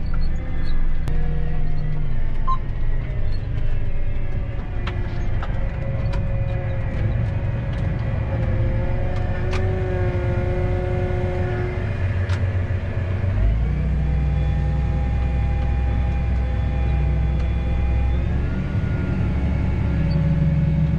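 Combine harvester running in a soybean field, heard from inside the cab: a steady low engine drone with machine whines above it. About two-thirds through, the drone grows louder and the whines shift pitch.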